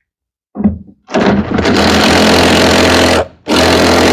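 Cordless power screwdriver with a 13 mm socket. After a brief blip it runs in two long bursts of about two seconds each with a short break between. It is trying to undo the nut holding the worn plastic drive pulley on the washing machine's gearbox shaft, without loosening it.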